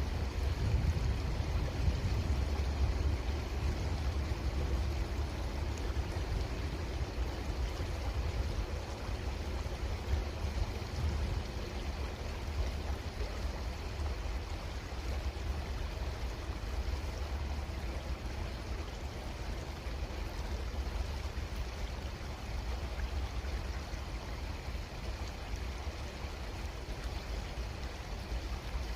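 Creek water flowing in a steady rush, with a strong low rumble underneath.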